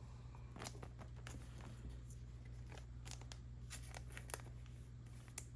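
Faint scattered clicks and light rustles of trading cards and pack wrappers being handled, over a steady low electrical hum.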